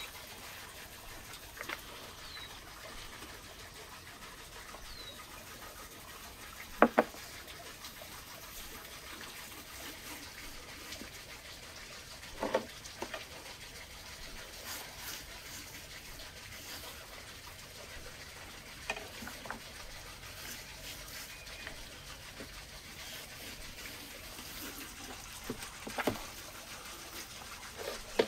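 Hands rubbing a wet spice marinade over a whole raw lamb, a soft wet rubbing broken by a few sharp knocks, the loudest about seven seconds in. A couple of faint bird chirps.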